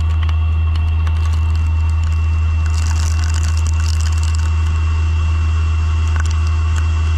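CNC machine tool running with a steady low hum and a constant high whine, with scattered small clicks and a burst of hiss about three seconds in.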